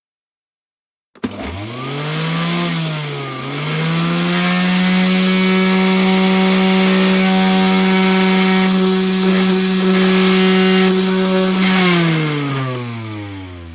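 Electric kitchen appliance motor switching on after a moment of silence and spinning up, its pitch dipping briefly as it takes the load, then running steadily for about eight seconds before winding down near the end.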